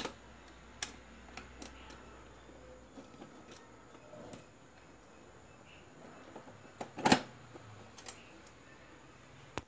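Scattered clicks and knocks from a battery charger's switch being worked and its metal case being handled, the loudest a sharp clack about seven seconds in. A faint low hum stops about three seconds in.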